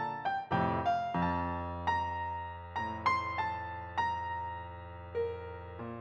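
Background music: a slow keyboard melody of single piano-like notes, about one a second, each fading away over a held low bass note.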